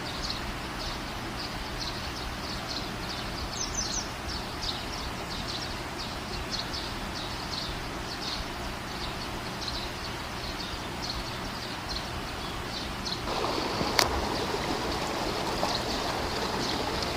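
Rushing water from a waterfall and its stream, a steady noise that grows louder and fuller about thirteen seconds in. Short high chirps repeat a few times a second above it, and there is one sharp click near the end.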